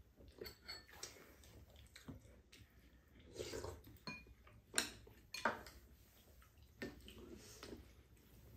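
Chopsticks and spoons clinking against bowls and a pan during a meal: scattered sharp clicks, the loudest about five seconds in.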